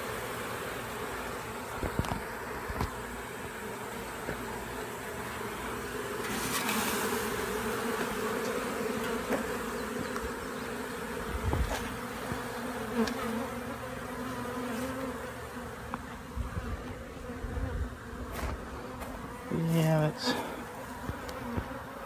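A swarm of honey bees buzzing steadily close by as the cluster on a post is worked down into a hive box. A few short knocks, and a brief louder noise near the end.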